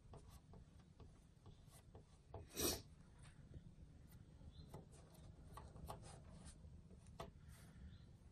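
Faint rubbing and small ticks of a fingertip pressing and smoothing glazing putty into holes in a painted wooden table, with one brief louder rustle about two and a half seconds in.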